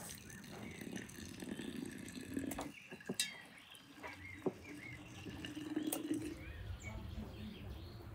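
Small birds chirping, with a few sharp clicks, the loudest about three seconds in.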